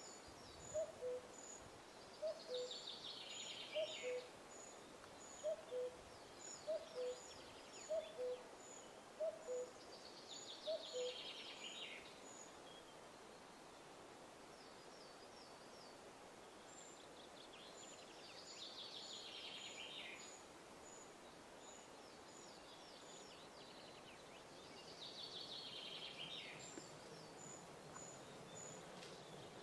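Western capercaillie cock singing in a tree: series of ticks, each ending in a raspy, falling scraping phrase, repeated about every seven to eight seconds, four times. A low two-note call repeats about once a second through the first ten seconds.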